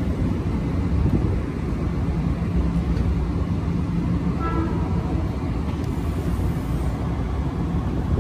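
Steady low rumble of a train approaching from far down the track, with a faint hum through the middle seconds.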